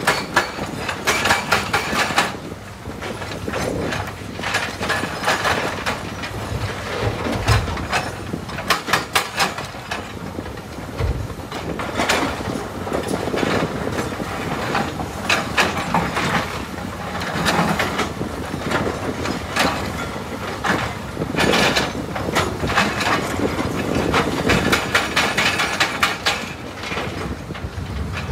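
Komatsu PC300 excavator loading andesite rock into a dump truck: irregular bursts of rocks clattering and knocking against steel, over the machine's engine running.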